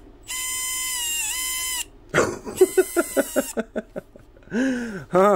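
A brushless ESC sounds its start-up tone through a small TP Power 2030 brushless motor: a steady high beep lasting about a second and a half, which dips in pitch briefly. After it comes a quick run of short yips and then two barks from a dog.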